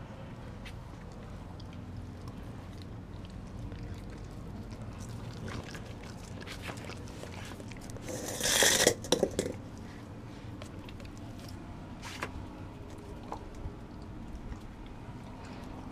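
Dogs biting and chewing on a raw whole chicken, with small wet crunches and clicks. About eight seconds in, a dog's muzzle comes right up against the microphone, giving a loud rustling burst for a second or so.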